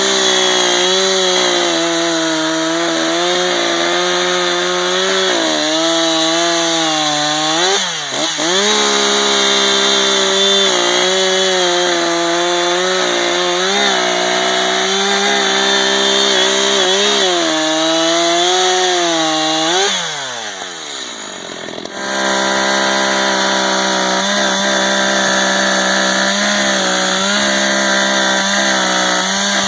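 Echo CS-590 two-stroke chainsaw running at high revs, most likely cutting through wood. The revs dip briefly about eight seconds in and again a few times after. Around twenty seconds in the pitch falls away and the saw goes quieter for a moment, then it picks back up to full speed.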